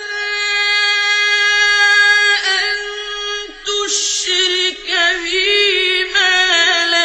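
Background song: a single high voice sings a long held note, then moves into wavering, ornamented runs.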